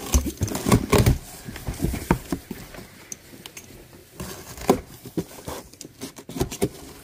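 Cardboard shipping box being opened by hand: its flaps pulled apart and the cardboard scraping, crackling and knocking in a string of sharp clicks, loudest about a second in and again near five seconds.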